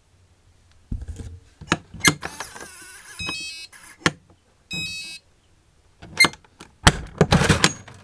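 RVLock keyless RV door lock being worked by its key fob: clicks and knocks from the lock mechanism, two short electronic beep sequences about two and a half and five seconds in, then a louder clatter of the door handle and door near the end.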